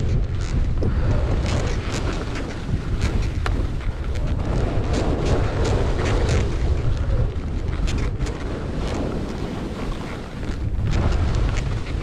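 Wind buffeting the microphone of a skier moving downhill, a heavy low rumble, with skis hissing and scraping over packed snow that swells and fades through the turns, and many brief clicks.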